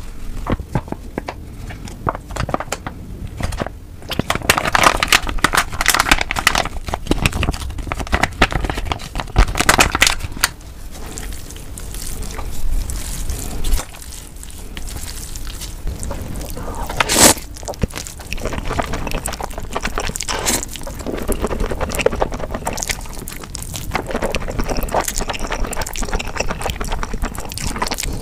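Close-miked wet eating sounds played at double speed: thick spicy sauce squelching out of a packet and through a plate of noodles as they are stirred with chopsticks, with many small sticky clicks and smacks, and noodles slurped near the end.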